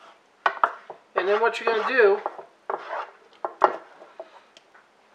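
A spoon scoops a thick cream cheese chicken and broccoli mixture out of a pan. It knocks and scrapes against the pan in a string of short sharp clicks, and the loudest knock comes a little past the middle.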